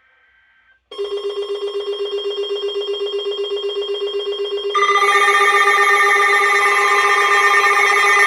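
Electronic emergency alert alarm tone: a rapidly pulsing low buzzing tone starts about a second in, and a few seconds later higher steady tones join it and it gets louder.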